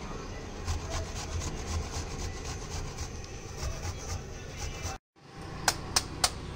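Fresh ginger root rasped back and forth on a stainless steel box grater against a wooden cutting board, about three strokes a second. Near the end, after a short break, a few sharp knocks as the grater is knocked on the board.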